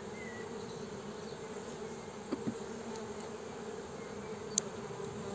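Steady hum of a honeybee colony buzzing over an open hive. A couple of faint knocks come a little past two seconds in, and a sharp click about four and a half seconds in.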